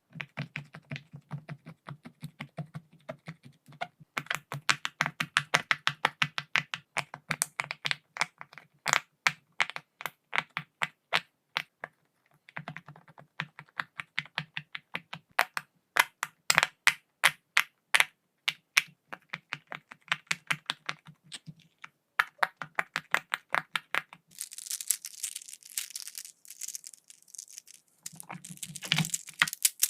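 Silicone pop-it fidget toy bubbles being pressed one after another, making sharp popping clicks at several a second with short pauses. A rustling scrape runs for a few seconds near the end before the popping resumes.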